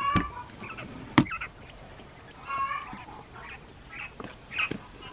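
Japanese (Coturnix) quail giving short chirping calls several times, with a sharp click about a second in.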